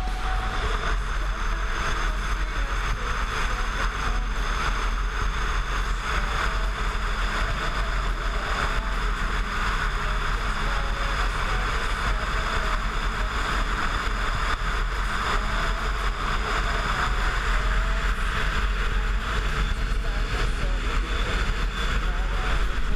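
Kawasaki Versys 650 motorcycle riding along, its engine running steadily under heavy wind rumble on the helmet or bike-mounted camera's microphone.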